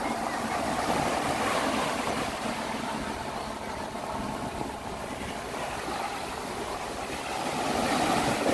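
Sea surf on a sandy beach: small waves breaking and washing up the sand, the rushing swelling about a second in and again as a wave breaks near the end.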